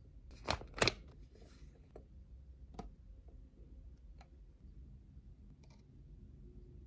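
Quiet handling noises: two short crinkles of a plastic eye-patch packet within the first second, then a few faint ticks and rustles as the gel under-eye patch is put on, over low room hum.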